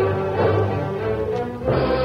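Radio drama theme music: held chords, moving to a new chord near the end.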